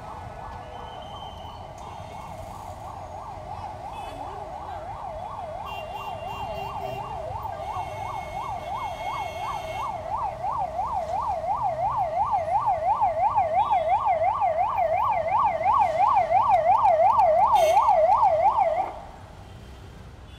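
Ambulance siren sweeping quickly up and down, about three times a second, growing steadily louder as it approaches, then cut off abruptly near the end.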